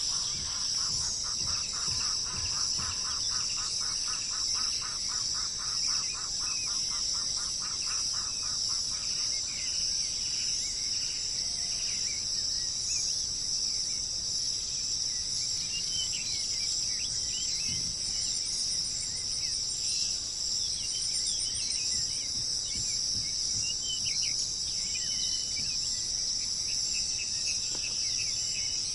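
A steady, high-pitched insect chorus with birds calling over it. For the first nine seconds or so, a bird repeats one note in a rapid run, about four a second. After that come scattered short chirps.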